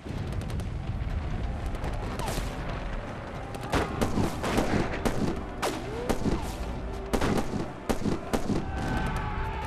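Battle sound of rifle fire over a steady low rumble: scattered shots at first, then many shots in quick, uneven succession from about four seconds in. A held tone comes in near the end.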